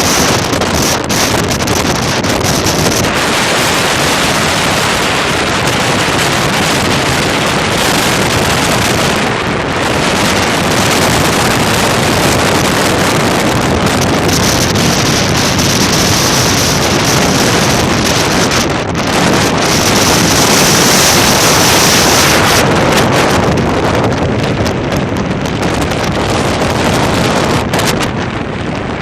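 Strong wind buffeting the microphone: a loud, rushing noise that rises and falls in gusts, at its strongest about two-thirds of the way through.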